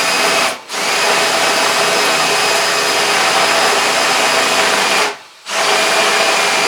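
Power drill with a step bit cutting through the enamelled steel wall of a Weber Smokey Mountain smoker, enlarging a pilot hole to bolt size. It runs in bursts: a short one at the start, a long run of about four seconds, then a brief stop and another run near the end.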